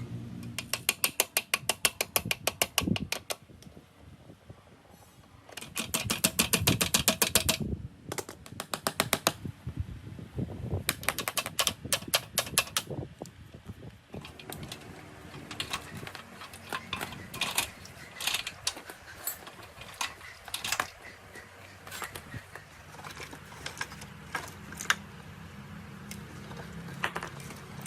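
Hand tools working on motorbike metal parts: several runs of rapid, evenly spaced clicks in the first half, then scattered single clicks and knocks.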